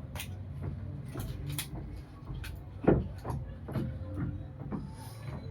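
Light clicks and knocks of things being handled, with one louder thump about three seconds in.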